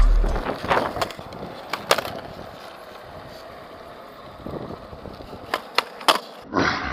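Skateboard wheels rolling, the rumble dying away in the first half second, then scattered sharp clacks of the board, several in quick succession near the end.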